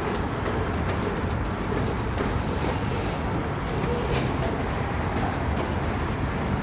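Freight train's boxcars rolling past at a steady speed: a continuous rumble of steel wheels on rail, with a few faint high clicks.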